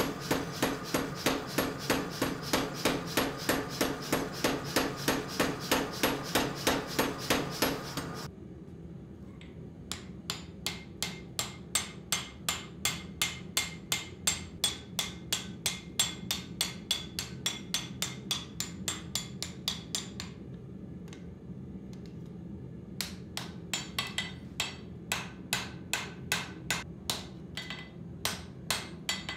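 A mechanical power hammer pounds hot axe steel at about five blows a second over a steady motor hum, stopping abruptly about eight seconds in. Then a hand hammer strikes the glowing axe head on an anvil at about three ringing blows a second, pauses briefly, and resumes.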